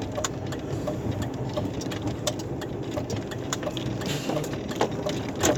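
Truck engine running, heard from inside the cab, with scattered clicks and rattles over a steady low hum.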